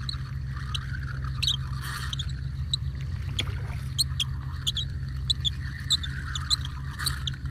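Spinning reel being cranked on a lure retrieve: a steady whir from the turning reel, with many light, irregular clicks and squeaks.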